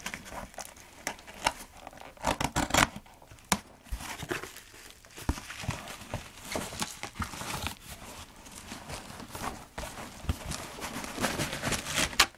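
Cardboard and plastic packaging being handled: irregular rustling, crinkling and sharp clicks and taps as a boxed collectible figure is taken out of its box and plastic tray.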